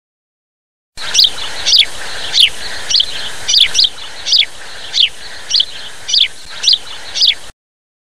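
A swallow calling: a run of short, high chirps, each sliding downward, about two a second. They start about a second in and cut off abruptly near the end.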